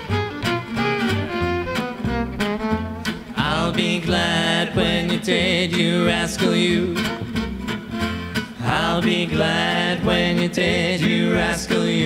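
Gypsy jazz band playing live: a violin carries the melody over steadily strummed acoustic guitar rhythm and upright bass.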